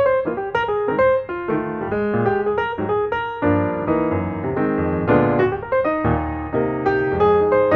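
Background piano music, a steady run of quickly struck notes.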